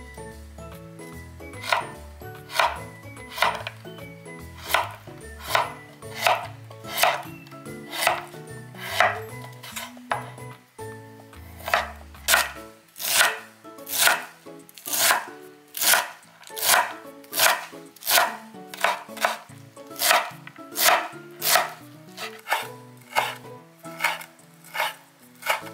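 Kitchen knife slicing small white turnips on a wooden cutting board: a steady run of crisp chops, about one a second, getting a little quicker after the middle. Soft background music runs under the first half.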